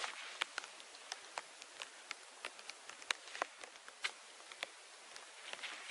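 Light rain: scattered drops ticking irregularly on leaves over a soft, steady hiss.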